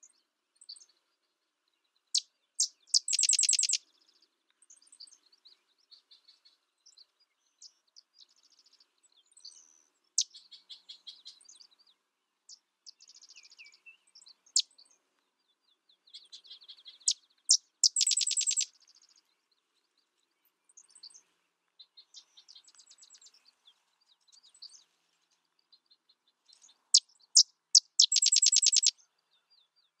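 Sedge wren singing: three songs, each a few sharp separate chip notes running into a rapid, dry chattering trill of about a second, with fainter chattering in between.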